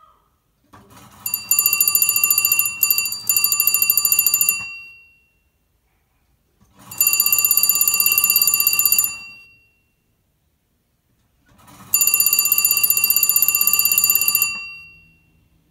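Western Electric Sculptura telephone's bells ringing in three bursts of rapid, fast-repeating strikes, each lasting two to three seconds and dying away, with silent gaps of a few seconds between: an incoming-call ring.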